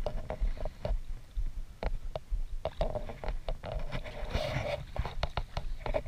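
Water sloshing and splashing as a hooked fish is played toward a landing net held in the water, with many short clicks and knocks throughout.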